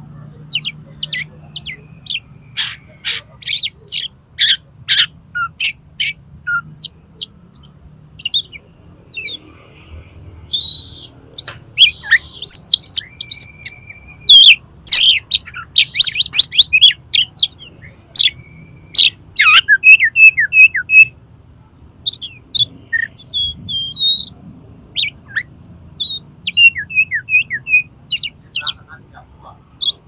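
Oriental magpie-robin (kacer) singing a varied song of rapid, sharp whistled notes and sweeping phrases, broken by a few harsh raspy notes and one held whistle about midway.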